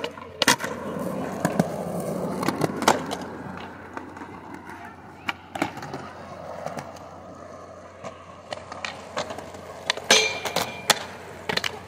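Skateboard wheels rolling on concrete, with sharp board clacks, pops and landings every few seconds. The rolling is loudest over the first three seconds. Near the end comes a quick cluster of clacks, one followed by a short high squeak.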